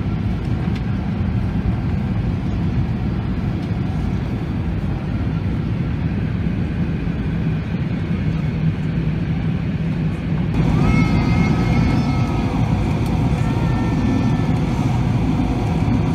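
Steady in-flight cabin noise of an Airbus A380: a low rumble of engines and rushing air. About ten seconds in it turns a little louder and brighter, with a few faint high tones over the rumble.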